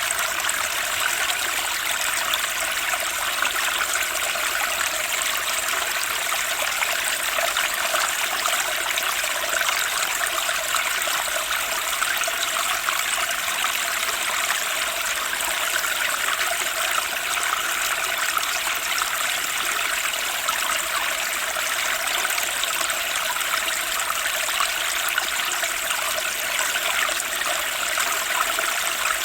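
Fast-flowing spring stream rushing and splashing steadily over rocks, its sound even, with no pauses or surges.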